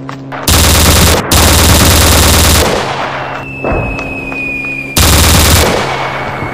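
Automatic gunfire sound effect: long, loud bursts of machine-gun fire starting about half a second in, with a brief break, and again near the end, each trailing off. A thin high whine hangs on between the bursts.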